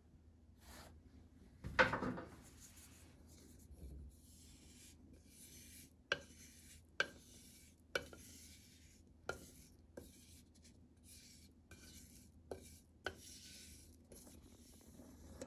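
Thick hazelnut butter being poured and worked out of a metal pot into a glass jar, with a louder knock about two seconds in. From about six seconds in come scraping sounds and a run of sharp taps, roughly one a second, as the pot is worked against the jar.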